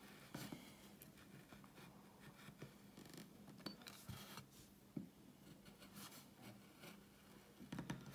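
Faint, irregular scraping and clicking of a hand carving gouge paring short cuts into limewood, over a faint steady hum.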